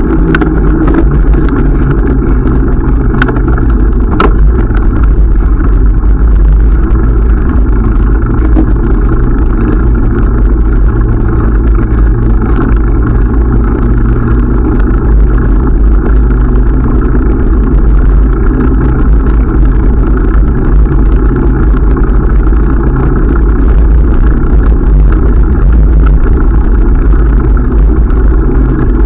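Steady, loud riding noise from a bicycle ride: wind buffeting the camera microphone, with tyre rumble underneath.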